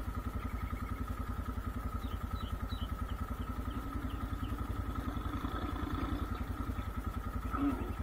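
Vehicle engine idling steadily with a rapid, even beat, while birds chirp faintly in the background.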